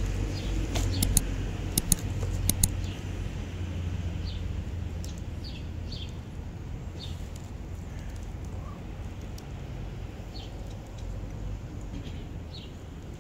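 Plastic treat wrapper crinkling in sharp clicks during the first few seconds, over a steady low rumble, with short high bird chirps every second or two through the rest.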